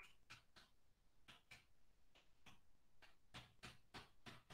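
Faint computer keyboard typing: single key presses at a steady pace of roughly two to three a second.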